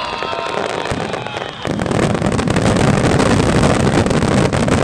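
Fireworks finale: a few falling whistles, then about a second and a half in a sudden dense barrage of rapid bangs and crackling shells.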